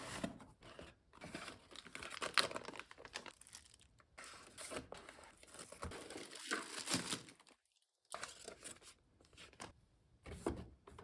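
Packaging being handled and opened: irregular crinkling and tearing, broken by a short pause about two-thirds of the way through.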